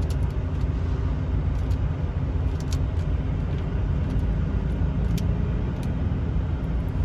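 Steady low drone of an idling diesel truck engine, with a few light clicks of small mounting nuts and screws being handled.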